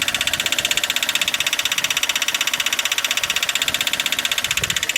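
Toyota 1ZZ four-cylinder engine idling with a rapid, even knock of about a dozen strikes a second. The owner places the knock on the left side by the gearbox, below the oil pan, rather than in the engine itself.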